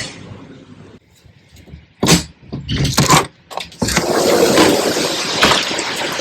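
Heavy rain falling, a loud steady hiss that sets in about four seconds in. It comes after a few loud, irregular knocks and rustles.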